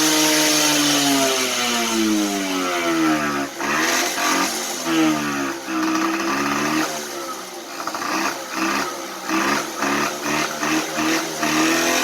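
Kymco 150cc scooter's carbureted single-cylinder engine running: it holds a steady fast speed, drops over the first few seconds, then rises and falls unevenly with short blips of the throttle.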